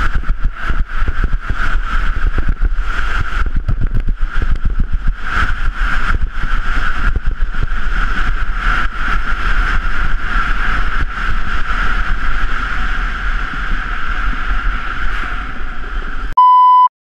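Doubles luge sled sliding at speed down an ice track, heard from a camera on the sled: the steel runners scrape and chatter on the ice over a deep rumble and rushing wind, with a steady high ringing tone throughout. Near the end a short electronic beep sounds, then the sound cuts off.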